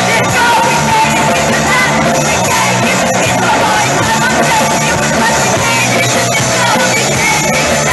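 Live rock band playing loud, with women singing lead over bass and drums.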